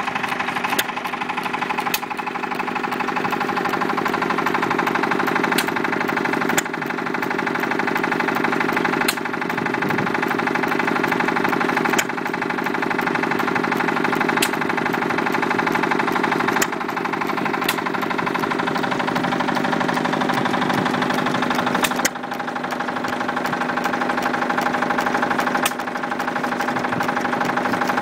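Moteur Japy 12E vertical open-crank hit-and-miss engine running under its governor, driving a wine pump. A sharp firing bang comes every one to four seconds at uneven intervals, with steady mechanical clatter in between as it coasts on its flywheels.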